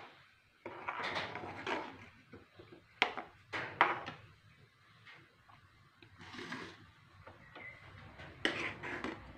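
A spoon stirring thick chickpea curry in a steel pan, scraping through it and knocking against the pan, with sharp taps about three and four seconds in.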